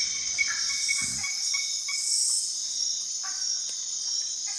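Rainforest insect chorus: a steady high-pitched shrilling of many insects, with short chirps repeating now and then at a lower pitch.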